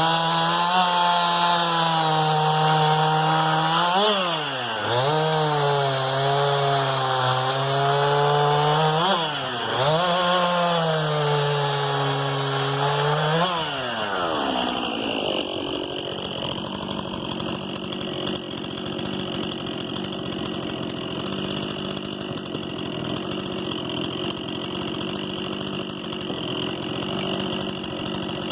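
Stihl MS 261 C-M two-stroke chainsaw running at high revs, its pitch sagging and climbing back three times as it is loaded and eased in the cut. About halfway through the clear engine tone gives way to a rougher, steadier noise that is a little quieter.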